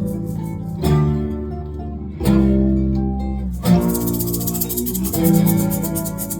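A live band playing a song's instrumental intro: acoustic guitar strummed chords that change about every second and a half, with a shaker keeping a quick, steady rhythm.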